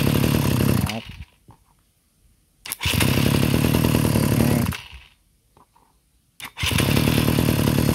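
Small brush cutter engine being electric-started from a 4-cell battery pack, catching at once and running for about two seconds before being cut off. The engine already running stops about a second in, then it is started and stopped twice more.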